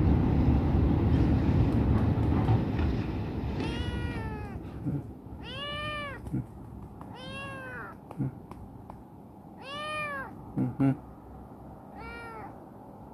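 Young black kitten meowing five times, each meow a high call that rises and falls in pitch, spaced one to two seconds apart, with a few short low sounds between them. A low rumbling noise fills the first few seconds and fades out.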